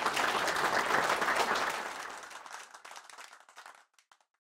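Audience applauding. The clapping thins out over the last couple of seconds and ends with a few scattered claps.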